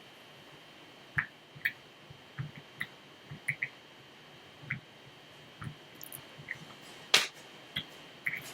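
Irregular small metallic clicks of a lock pick and tension wrench working the pins of a Master Lock Pro Series removable-core padlock, with one sharper, louder click about seven seconds in.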